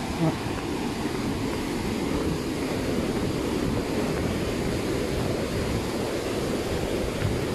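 Steady rushing roar of the Curug Sewu waterfall's falling water, an even noise that holds at one level.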